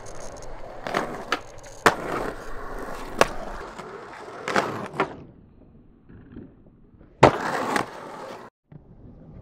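Skateboard wheels rolling on rough concrete, broken by about six sharp clacks of the board in the first five seconds. After a quieter stretch there is a second short, loud burst of rolling near the end.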